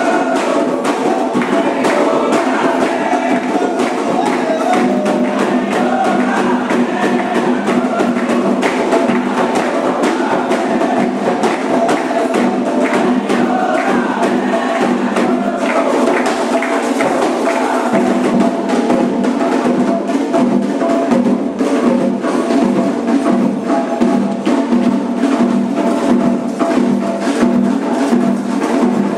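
Candomblé ceremonial drumming: hand drums and a sharp, clicking percussion part keep up a fast, steady rhythm, with voices singing along during the first few seconds.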